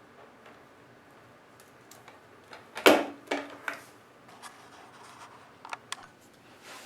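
Handling noises from the newly unboxed dehumidifier: one loud knock with a short ring about three seconds in, followed by a few lighter clicks and taps.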